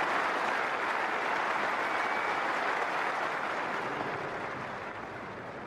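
Cricket ground crowd applauding a batsman's double century: a dense, steady clapping that slowly fades over the last couple of seconds.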